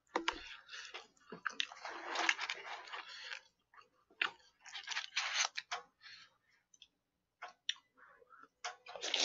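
Close-miked eating: wet chewing and mouth sounds in several bursts with small clicks, then a loud slurp of bibim naengmyeon noodles near the end.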